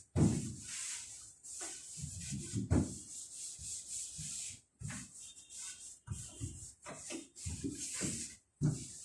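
Wooden kitchen cabinets being wiped down with cooking oil: a rubbing, brushing sound in repeated strokes of about a second each, with short breaks between them.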